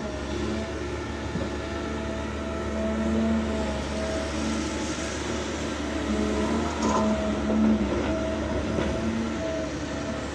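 Caterpillar 320 Next Gen excavator running: a steady diesel drone with pitched whining tones that come and go.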